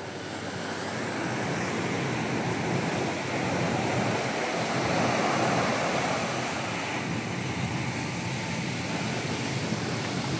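Ocean surf breaking and washing up a sandy beach: a steady rushing that swells to its loudest around the middle and then eases a little.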